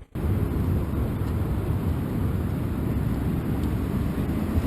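Steady low rumbling noise with no clear tone or rhythm, of the kind heard outdoors on a small camera's microphone.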